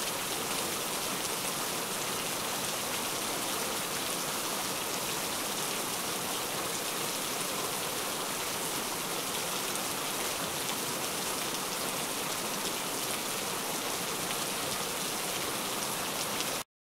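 Heavy rain falling steadily and loudly, a dense even patter, which cuts off suddenly just before the end.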